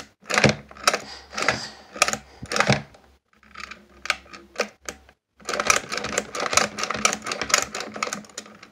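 Play-Doh toy mixer being turned, its plastic gears and mixer head giving a rapid clicking rattle as they press and spin on play dough in the bowl. There are two spells of clicking, with a quieter pause between them a little past the middle.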